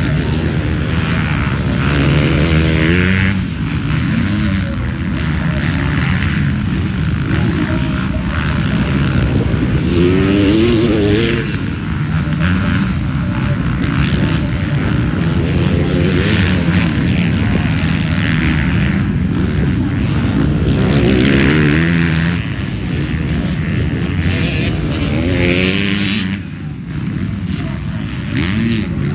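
Several motocross bikes racing, their engines revving up and down over and over, the overlapping notes rising and falling in pitch as the riders accelerate and back off.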